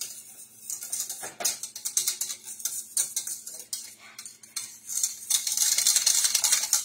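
Metal whisk clinking and scraping against the sides of a stainless steel saucepan as thick white sauce is beaten to stop it clotting. In the last second and a half a louder, continuous rasping sets in.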